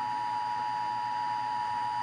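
Emergency Alert System attention signal: a steady two-tone alarm, two close pitches sounding together without a break.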